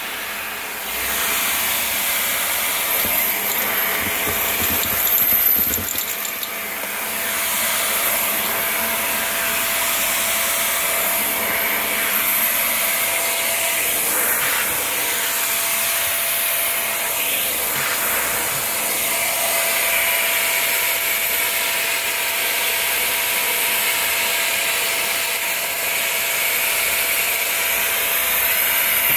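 Upright vacuum cleaner running steadily, its hose wand drawn along the carpet edge to suck up cat litter and pet dander, with a steady whine over the rush of air.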